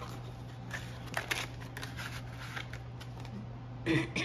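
Paper banknotes and a kraft-paper envelope rustling and brushing as a stack of bills is handled and slid into the envelope, in short scattered strokes. Near the end, a brief louder throat-clearing sound.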